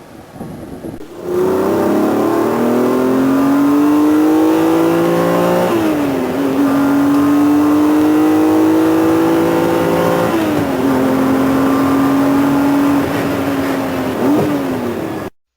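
A high-revving car engine accelerating under load through the gears: the pitch climbs steadily, drops sharply at an upshift about a third of the way in and again about two-thirds in, then climbs again. Near the end there is a quick dip and rise in pitch before the sound cuts off suddenly.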